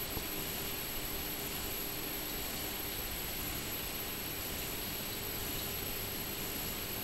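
Steady hiss of running aquarium filters with a faint, even motor hum underneath.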